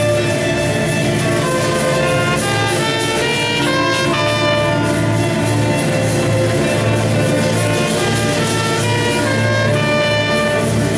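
Live chamber ensemble playing: trumpet and violins sounding a melody together in a steady flow of changing notes.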